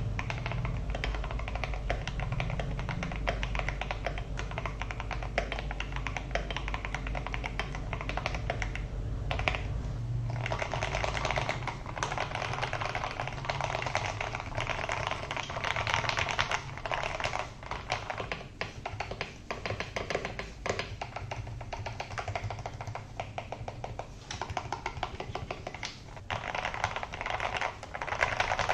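Fast, continuous typing on a mechanical keyboard fitted with PBT keycaps: a dense stream of key clacks. About ten seconds in, the clacking becomes brighter and fuller, and a low background hum drops away.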